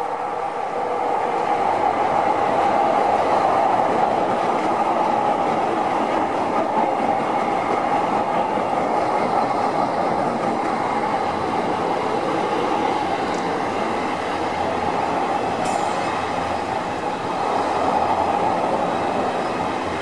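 E259-series Narita Express electric train passing close by: a steady rush of wheel and running noise on the rails, loudest a few seconds in as the front cars go past, with one brief sharp click near the end.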